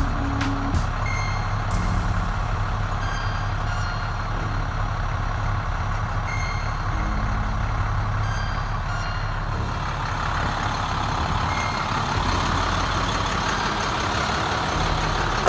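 International DT466 inline-six diesel idling at about 500 rpm in a parked 2005 International CXT, a steady low hum. Short electronic beeps at different pitches sound over it now and then.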